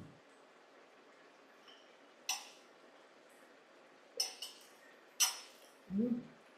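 Metal cutlery clinking against a plate and a cooking pot: four separate sharp clinks, each with a short ring.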